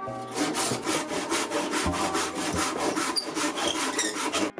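Handsaw cutting through a lime-wood bowl blank in quick, even back-and-forth strokes, stopping suddenly near the end.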